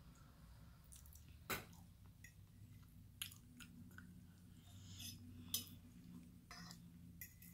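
Faint chewing and mouth sounds of a person eating cheese enchiladas and rice, with a handful of sharp clicks of a fork against a plate. The two loudest clicks come about a second and a half in and again about five and a half seconds in.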